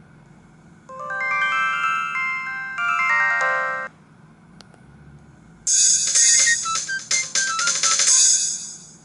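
Samsung SGH-E250i mobile phone ringtones played through the phone's speaker. A short synthesized melody plays and stops abruptly, and after a brief pause a loud drum-and-cymbal passage with many sharp hits plays until near the end.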